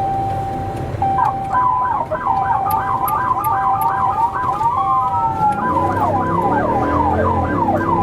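Police car siren switched on: a held tone, then from about a second in a fast yelp with about three rising sweeps a second. Past the middle a low rumble joins underneath.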